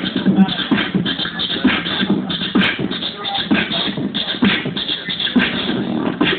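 Live beatboxing: a steady, fast drum-like beat of mouth-made kick and snare sounds, played through a small amplifier speaker.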